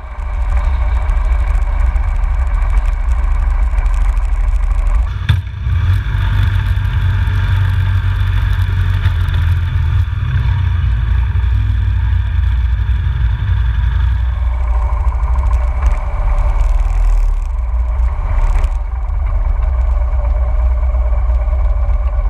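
Harley-Davidson Sportster V-twin engine running as the motorcycle rides at low speed on a street, with a heavy low rumble. Its pitch shifts a couple of times, and it is still running, stopped, near the end.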